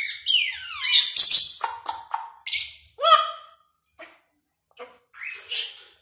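African grey parrot calling: a long falling whistle at the start, then a run of harsh squawks and short whistles with brief gaps between them.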